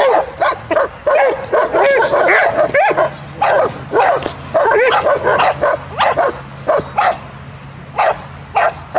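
A Doberman barking rapidly at a protection-training decoy, about two to three loud barks a second without let-up.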